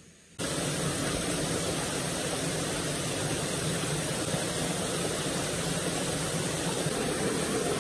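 River water rushing over flat rocks in shallow rapids: a steady, loud rush of water that starts suddenly about half a second in.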